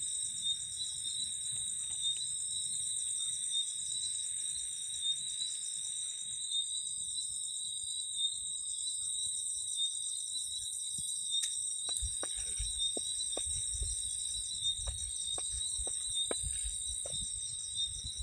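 Crickets chirping in a steady, high-pitched, finely pulsing trill. In the second half, scattered sharp clicks and low thumps come in over it.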